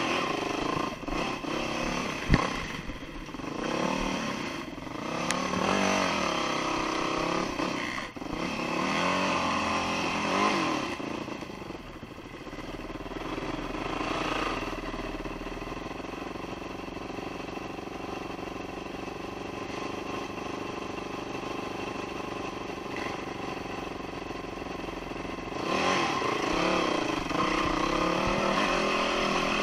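Dirt bike engine revving up and down with the throttle for the first ten seconds or so, then running steadier and lower through the middle, and picking up again near the end. A sharp knock about two seconds in.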